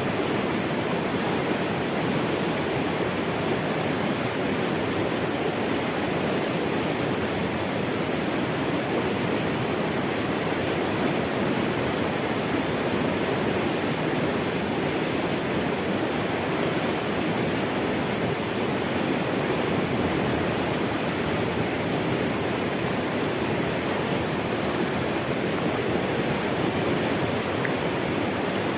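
Running water rushing steadily, an even, unbroken noise with no distinct splashes or other events.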